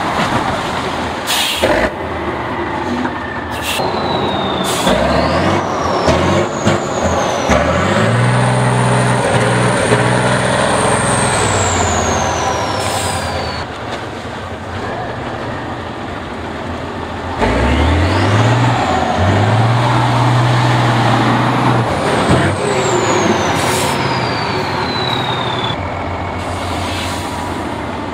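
Tatra 6x6 trial truck's diesel engine working hard under load in deep mud, revving up in two long surges, with a high whine that rises and falls with the revs. A few short sharp hisses break in between.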